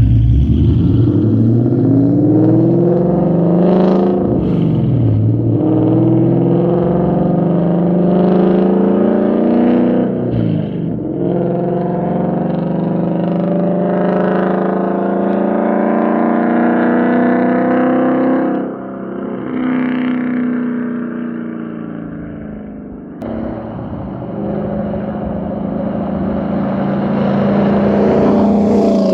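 V8 car exhaust running through an X-pipe and H-pipe into a resonator with no muffler, under hard throttle. The engine note climbs in pitch and drops sharply three times, eases off and quiets for a few seconds, then climbs again near the end. The raspy metallic exhaust "clap" is almost gone but still slightly there.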